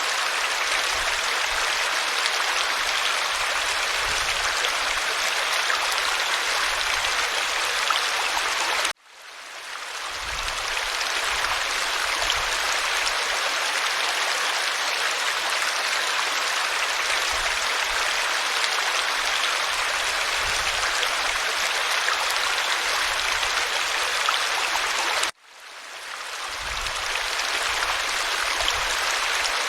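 Mountain river rushing steadily over its bed. The sound cuts out abruptly twice, about nine seconds in and again near the end, each time fading back up over a second or two.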